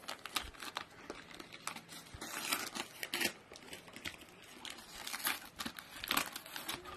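Brown paper parcel wrapping crinkling and tearing as it is cut and pulled open by hand, in irregular crackly bursts.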